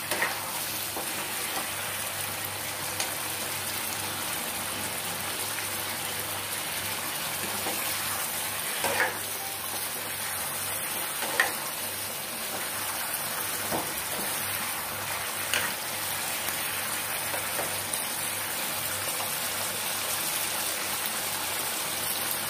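Chicken pieces sizzling steadily as they braise in oil and spiced gravy in a pan, with a few short scrapes and knocks of a plastic spatula stirring them against the pan.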